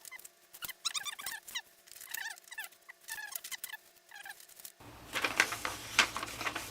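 Short bursts of high, squeaky chirps from a small animal about once a second. About five seconds in, loud rustling and crinkling of paper pages being handled takes over.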